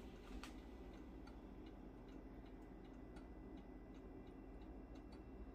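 Near silence with faint, evenly spaced ticking, about two ticks a second, over a low steady hum.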